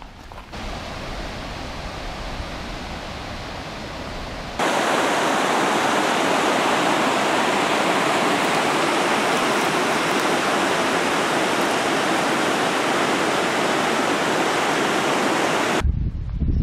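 Mountain creek rushing over boulders: a loud, steady rush of water that starts abruptly about four and a half seconds in, after a quieter, even rush, and cuts off suddenly near the end.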